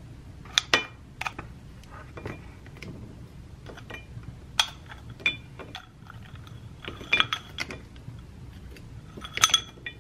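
A spoon clinking and scraping against a ceramic bowl, in separate sharp ringing taps, then berries tipped from a plastic tub clattering into the bowl in quick clusters in the second half, the loudest near the end.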